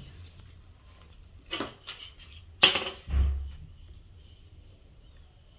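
A metal ruler handled and laid down on a table over fabric: a couple of light clicks, then a sharp clack about two and a half seconds in and a duller knock right after.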